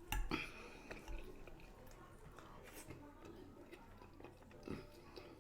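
Eating sounds from a toothless eater chewing food: a sharp click near the start, another about a second in, and scattered soft clicks and smacks through the rest.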